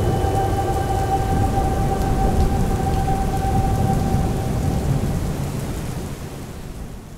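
Heavy rain with a low rumble of thunder, a steady downpour that fades out over the last couple of seconds. A held musical tone lingers over it for the first half.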